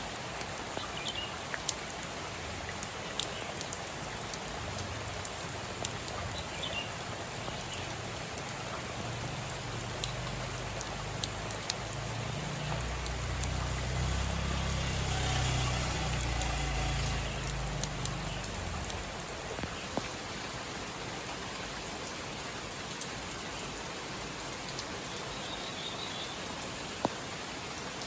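Steady rain falling, with individual drops ticking sharply on a surface. A low rumble swells in the middle and fades again.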